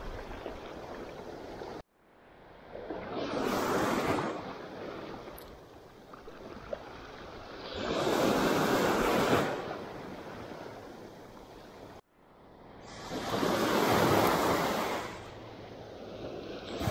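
Small sea waves breaking and washing up the sand at the waterline, the surf swelling and fading three times. The sound drops out abruptly twice.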